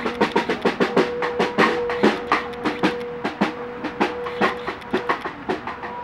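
Snare drum struck with sticks in quick, irregular strokes, several a second, growing fainter over the last few seconds. A steady held tone sounds beneath it.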